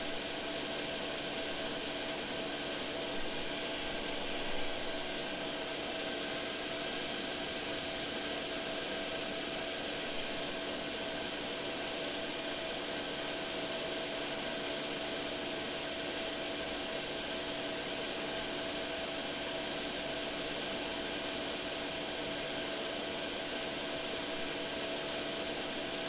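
12 V diesel air heater running, its blower fan giving a steady whir with a constant hum.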